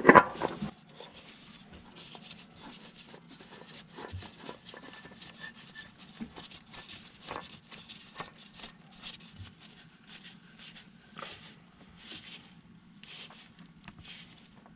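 A new spin-on oil filter being screwed by a nitrile-gloved hand onto a Duramax diesel's filter housing: a run of faint, irregular scrapes, rubs and small clicks as it turns on the threads, with a louder knock at the very start. A steady low hum runs underneath.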